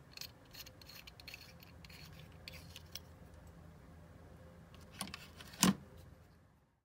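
Small metal clicks and scrapes of a steel Hagen's pen gun being handled and its knurled end turned in the fingers, with a louder knock a little before six seconds in, after which the sound cuts out.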